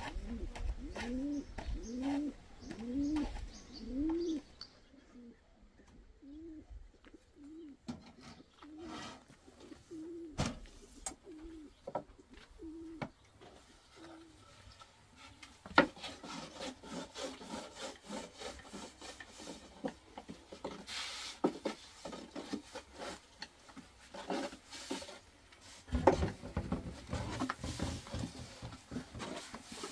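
Domestic pigeon cooing in a repeated call that rises and falls, about one every half second to second, over the first half. Then a rolling pin works flatbread dough on a cloth: soft rubbing and scraping, with a few sharp knocks.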